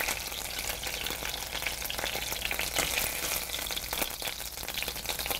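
Hot oil and rendered chicken-thigh fat sizzling steadily in a frying pan on medium-low heat, with fine crackles.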